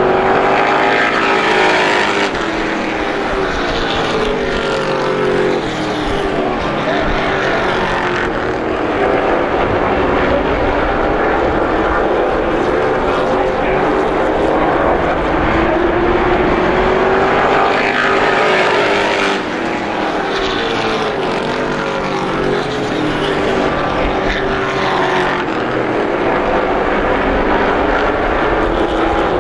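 A pack of short-track race trucks running at racing speed around a small oval. The engines are loud and steady, and their pitch swells and falls in slow sweeps every several seconds as the pack comes past and goes around.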